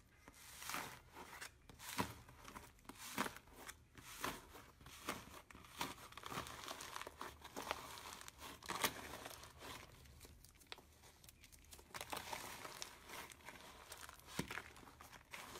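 Hands pressing and squeezing a crumbly, foamy blue mass, which crunches and crackles as it breaks apart, with a louder crunch about once a second.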